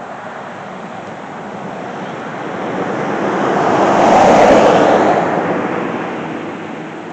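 A car driving past on a paved road: tyre and road noise swells to a peak about four and a half seconds in, then fades away.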